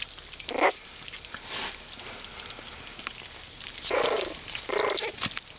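Young Havanese puppies whimpering and yelping in four short, high cries, with small scratchy clicks of them moving about between the cries.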